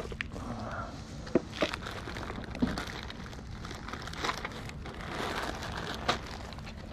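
Plastic zip-top bags of small toys crinkling and rustling as they are handled, with a few sharp clicks along the way.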